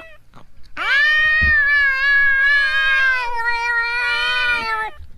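A cat giving one long, drawn-out meow that rises at the start and is then held for about four seconds.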